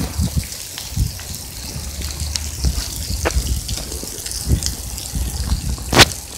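Rubbing and knocking of a covered phone's microphone against cloth or a hand, with a sharp knock about six seconds in, over a steady low rumble.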